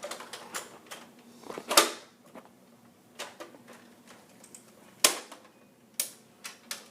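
Irregular sharp plastic clicks and clacks from a Nerf blaster being handled and worked, two of them louder than the rest.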